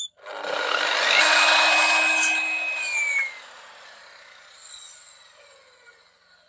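Chop saw starting up and cutting a shallow rabbet notch into pallet wood, loud for about three seconds. The blade then spins down with a falling whine that fades away.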